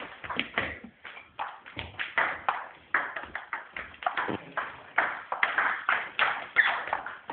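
Table tennis ball knocking back and forth between paddles and table in a rally: a run of sharp, short clicks, a few a second.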